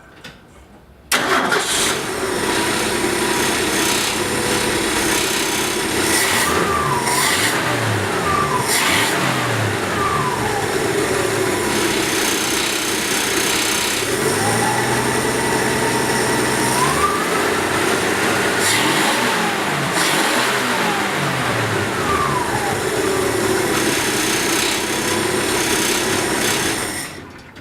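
A 1966 Ford F100's straight-six engine fires up about a second in and runs, revved up and back down several times, then shuts off near the end. This is its first start after a rewire and tune-up. A rattle comes with it, which the owner puts down to a loose grille.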